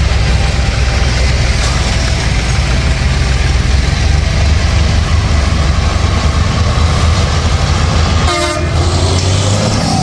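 Heavy diesel tractor engines running together in a deep, steady rumble, with a brief break in the sound about eight and a half seconds in.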